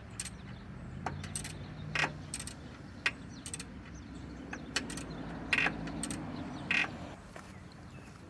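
Scattered, irregular metallic clicks and clinks of hand tools, about a dozen light strikes, over a low steady hum.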